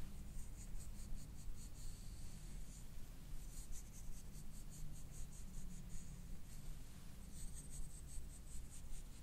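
A comb scraping through hair against the scalp in runs of quick, scratchy strokes, several a second, with short pauses between runs, as a scalp massage.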